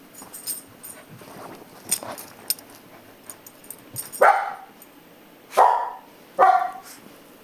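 A dog barks three times, loud and sharp, after a few seconds of faint rustling and clicks.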